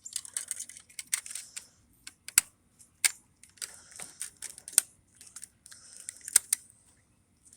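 Close handling noises: bursts of rustling and scraping with four sharp clicks spread through.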